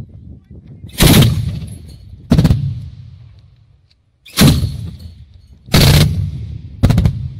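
Twin-barrel 23 mm anti-aircraft autocannon (ZU-23-2) firing five short bursts about a second or two apart, each burst trailing off in an echo.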